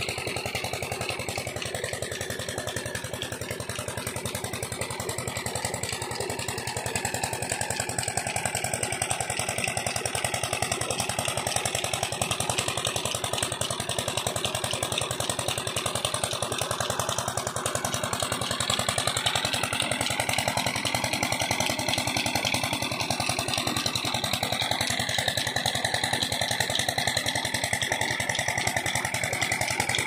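A small engine running steadily, its pitch drifting slowly up and down.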